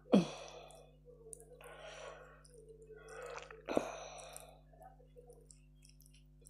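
Eating sounds from fingers tearing a roti and working food on a plate. Two sharp clicks come, one at the start and one a little under four seconds in, with soft rustles between them.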